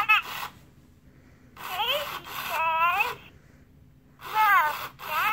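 Furby Baby toy's high-pitched electronic voice chirping several short, warbling phrases with pauses between.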